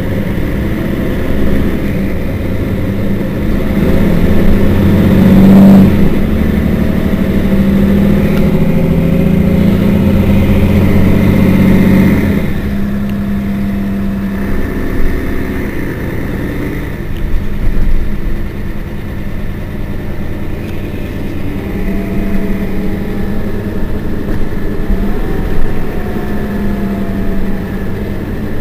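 Diesel engine of a Mercedes-Benz Citaro Facelift city bus running at a standstill, a steady low engine note. It grows louder for several seconds in the first half, then drops back and runs on evenly.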